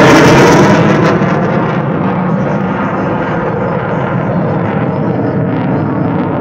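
Saab Gripen fighter jet's engine passing and moving away: loudest at the start, as the tail of a falling whine gives way to a steady rumble.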